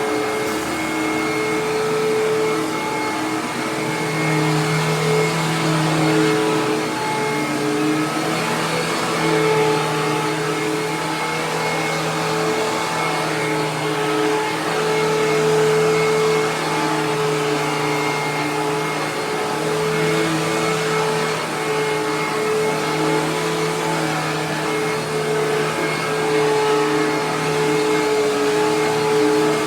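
Hoover WindTunnel TwinChamber upright vacuum cleaner running steadily and loud, a hum with a high whine over the rush of air. A vacuum shop first took this loudness for a bearing going out.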